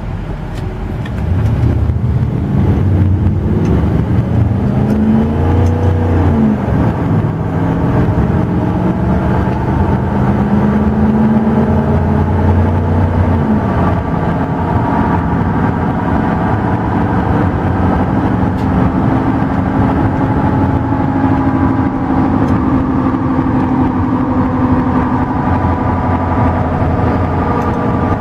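A 1998 Ford F-250's natural-gas-fuelled V8 engine accelerating hard from a standstill, heard from inside the cab. The engine note rises, drops back twice as the automatic transmission shifts up (about six and a half and thirteen and a half seconds in), then holds fairly steady at highway speed.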